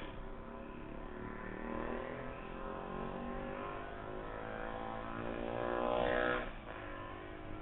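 A motor vehicle drives by on the street, its engine note rising steadily in pitch as it accelerates; it is loudest about six seconds in, then falls away sharply.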